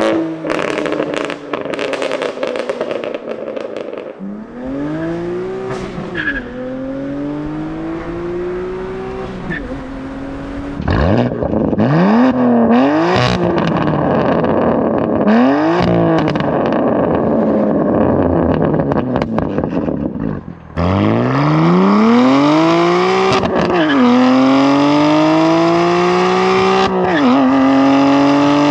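A BMW M2 Competition's S55 twin-turbo inline-six, breathing through an equal-length valved sport exhaust with OEM downpipes, accelerating hard through the gears. The revs climb and then fall sharply at each upshift, over and over. There are sharp cracks from the exhaust in the first few seconds.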